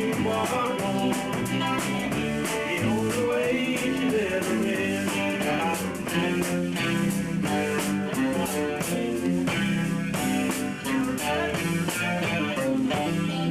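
A small amateur band playing a rock song in rehearsal: guitars and bass over a steady beat.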